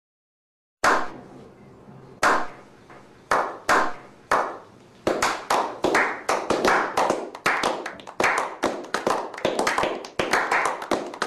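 A slow clap. Single hand claps come about a second apart at first. From about five seconds in, more hands join and it builds into fast, continuous clapping.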